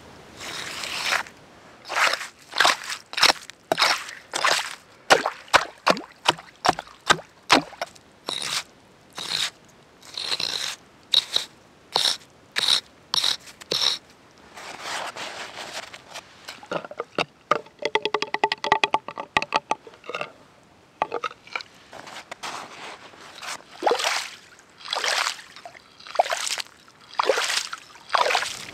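Axe chopping into lake ice to open a fishing hole: a long run of sharp blows with crunching ice, about two a second, then a quicker clatter and sloshing and scraping as the broken ice and slush in the water-filled hole are struck and cleared.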